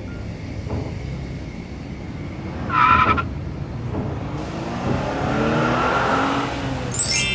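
Delivery truck sound effects: a steady engine rumble, a short horn honk about three seconds in, then tires squealing to a stop. A sudden bright ringing sound comes just before the end.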